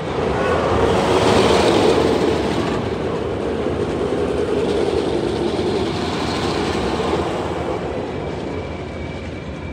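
Rocky Mountain Construction single-rail roller coaster train running along its steel track as it passes. Its rumble swells just after the start, is loudest a second or two in, and eases off over the last couple of seconds.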